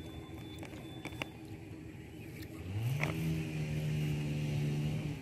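Faint clicks and handling noise, then a low engine drone comes in about halfway, rising briefly in pitch and then holding steady.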